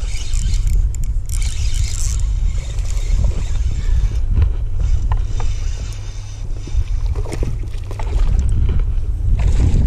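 Wind buffeting the microphone: a steady low rumble, with a few faint clicks and knocks.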